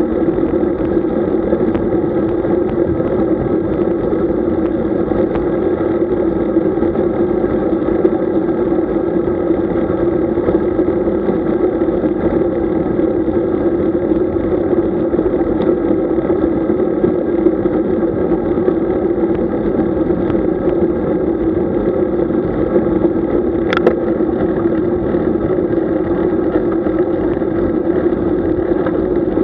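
Steady rush of wind and tyre noise from a road bicycle riding along, buffeting the camera's microphone. A brief, high, falling squeak cuts in once late on.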